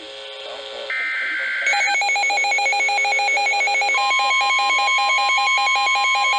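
Emergency Alert System SAME header data burst for a severe thunderstorm warning, a harsh second-long warble of digital tones about a second in. It is followed near two seconds in by the alert tones: a rapidly pulsing tone, joined about four seconds in by a steady tone.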